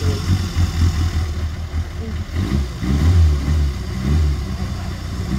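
Rally car's four-cylinder engine, a Fiat 127 Abarth, revving hard on the throttle; the engine note rises and falls repeatedly and is loudest about three seconds in.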